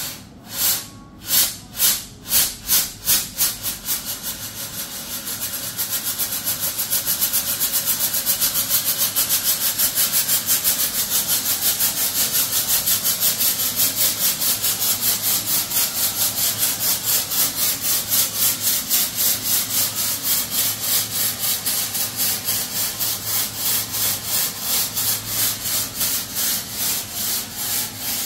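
UR Fog Modular 800 security fog generator firing, with fog jetting out as a loud, rhythmic pulsing hiss. It starts with a few separate strong pulses, about two a second, then settles about four seconds in into a continuous hiss that pulses about three times a second.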